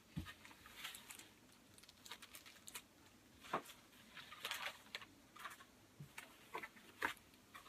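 Faint, irregular taps, clicks and rustles from packaging and parts of a boxed mini pool table being handled.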